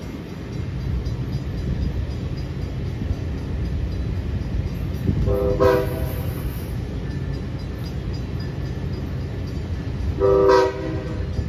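Two short train horn toots about five seconds apart, each a brief chord of notes, over a steady low rumble.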